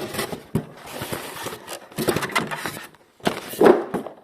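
Clicks and knocks of PC parts being handled on the workbench, a string of short sharp sounds with a louder thump about three and a half seconds in.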